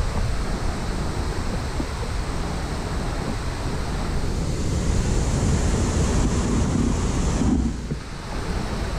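Wind buffeting the camera microphone over the rushing of river water. A brighter hiss rises past the middle and eases off shortly before the end.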